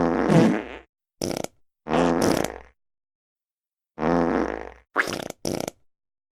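A run of fart sound effects: six separate buzzy farts of different lengths with short pauses between them. The longest lasts just under a second, and the last two are short and come close together.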